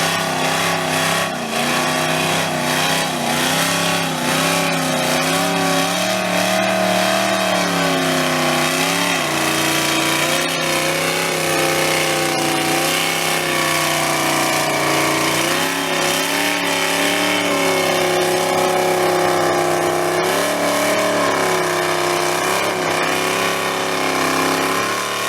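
Chrysler 408 stroker V8 in a VR Commodore skid car held at high revs during a burnout, its pitch wavering up and down, over a steady hiss.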